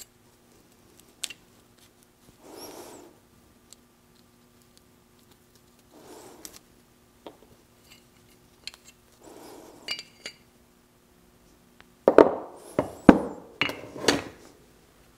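Steel parts of a double cardan drive-shaft joint being taken apart by hand on a workbench: scattered light clinks, scrapes and rubbing. A quicker run of louder metal knocks and clatter follows in the last three seconds.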